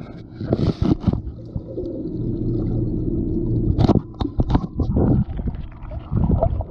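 Muffled underwater sound from a GoPro Hero 7's submerged microphone: low rumbling and gurgling water, with a steady low hum in the middle and a run of sharp knocks about four seconds in.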